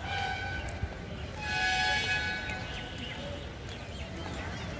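A vehicle horn sounding twice over steady outdoor background noise: a short honk at the start, then a longer two-tone honk about a second and a half in, lasting about a second.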